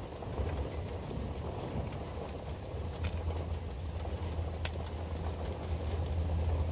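Rain falling on the roof overhead, over a steady low rumble, with a couple of sharp ticks about three seconds in and again a second and a half later.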